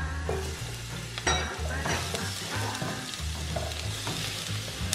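Sliced onions, yellow bell pepper and beef sausage sizzling as they drop into a pan of hot oil, with a few scrapes of a cleaver across a wooden cutting board as the food is pushed off.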